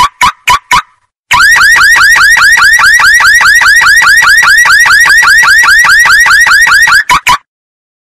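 Car alarm going off: four short beeps, then a fast repeating rising whoop, about five sweeps a second, for nearly six seconds, ending with two more short beeps.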